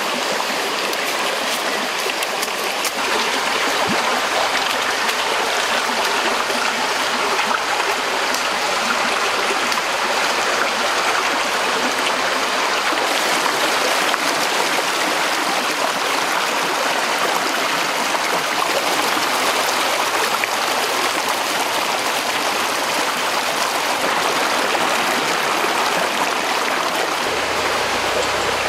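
Shallow stream water flowing over rocks: a steady, unbroken rush of water.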